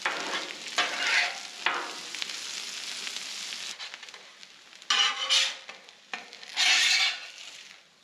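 Metal spatula scraping across the steel top of a Blackstone griddle as hash browns are lifted off, over the sizzle of the frying potatoes. Three quick scrapes in the first two seconds, then two louder ones about five and seven seconds in, while the sizzling fades.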